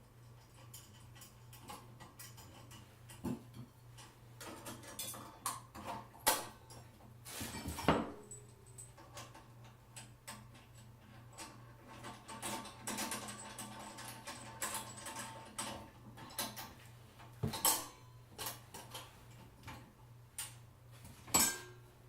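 Scattered metal clicks, clinks and rattles of hand assembly: steel lamp guards, sockets and a small wrench being handled and tightened on a sauna lamp base. The loudest knocks come about eight seconds in and again near eighteen seconds, over a faint steady low hum.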